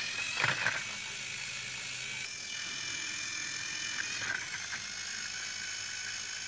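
Battery-powered Trackmaster toy train motors whirring steadily with a gear-grinding rattle as two engines push against each other, one of them derailed. There is a sharp plastic clack about half a second in.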